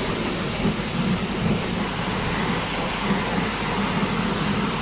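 High-pressure washer spraying water onto farm machinery: a steady hiss of spray over the washer's running pump hum.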